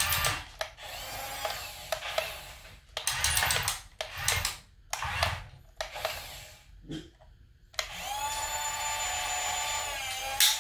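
Small electric drive motors and plastic gearboxes of an RC toy tank whining in stop-start spurts, the pitch rising and falling as it drives and turns, then a steady whine from about eight seconds in. A short loud burst comes just before the end.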